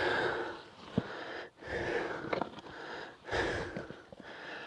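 Heavy, laboured breathing close to the microphone, about three deep breaths spaced roughly a second and a half apart: a hiker winded from climbing a steep slope.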